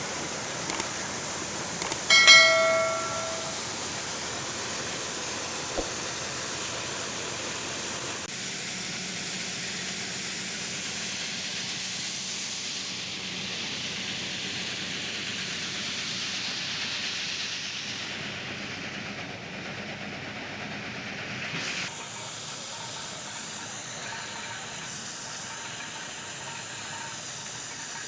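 Corn harvesting machine running with a steady rushing noise, with a short metallic ring about two seconds in.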